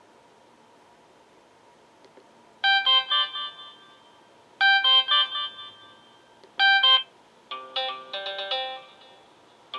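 Sonim XP6 phone playing a melodic ringtone through its loudspeaker. It starts about two and a half seconds in with three loud, bright chords about two seconds apart, then a quicker run of notes near the end, after a faint steady hiss.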